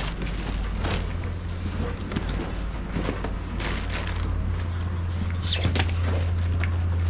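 Outdoor market ambience: a steady low hum with scattered knocks and rustles. A short squeal falls in pitch about five and a half seconds in.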